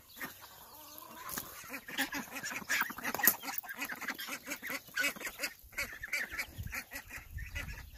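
Ducks quacking, a run of many short, quick calls.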